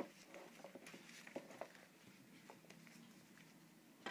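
Faint handling noise from a gas mask's rubber head harness and straps being gripped and moved: soft rustles and small clicks, mostly in the first second and a half, with a sharper click near the end.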